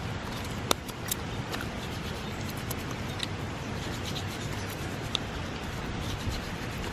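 Hands unpacking a take-out food bag and plastic-wrapped container: scattered small clicks and crinkles, the sharpest about a second in, over a steady background hiss.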